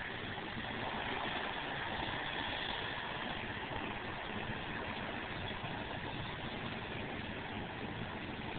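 Steady, even drone of distant airplane engines after landing, with no sudden changes.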